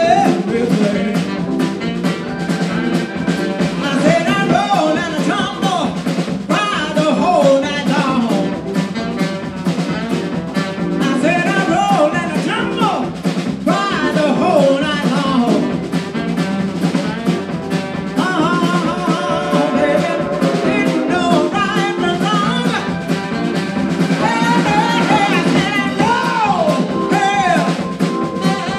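Live blues band playing, with a woman singing lead into a microphone over the band and drum kit.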